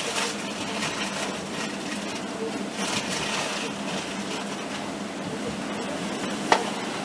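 Running noise of a moving train heard from inside the carriage: a steady rushing hiss over a faint low hum, with one sharp click about six and a half seconds in.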